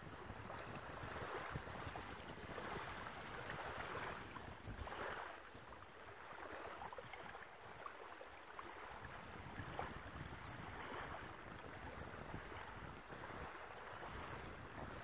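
Wind buffeting the microphone over the wash of small waves at the shoreline, an uneven rushing noise with a low rumble.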